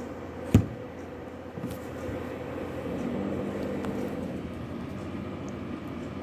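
Steady hum of a running desktop PC, its fans spinning, with one sharp click about half a second in.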